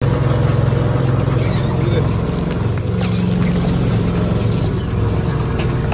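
A motor running with a steady low hum, with a few faint light clicks over it.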